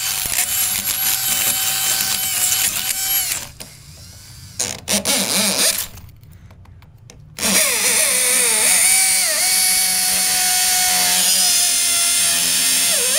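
Electric power tool motor running under load, its whine dipping in pitch as it bites. It cuts out twice, and after the second stop it spins back up with a rising whine.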